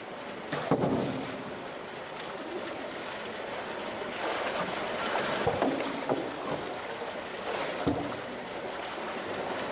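Pool water sloshing and splashing as a polar bear swims and paddles at a large floating buoy, with a few sharper splashes about a second in, in the middle, and near the end.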